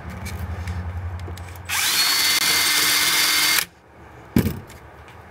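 Power drill spinning up and boring a fastener hole through the Jeep JK tailgate's metal for about two seconds. Its whine rises briefly, holds steady, then cuts off suddenly. A single sharp knock follows.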